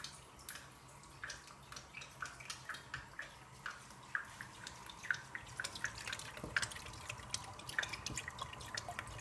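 Fish sauce dripping from an upturned bottle into a stainless steel pot of beef curry: a light run of small drips and plops, a few a second.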